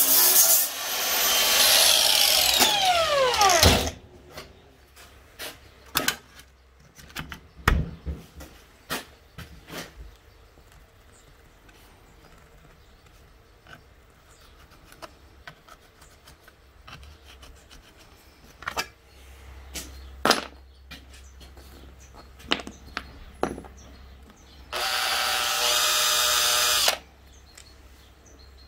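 An angle grinder runs against a small metal plate, then is let off and winds down with a falling whine about four seconds in. Scattered clicks and knocks from handling parts follow. Near the end a cordless drill runs steadily for about two seconds, driving a screw through a metal bracket into a plywood base.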